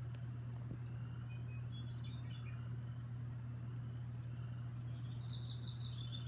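Faint, high chirps from a pet parrot, once about two seconds in and again as a quick rhythmic run near the end, over a steady low hum.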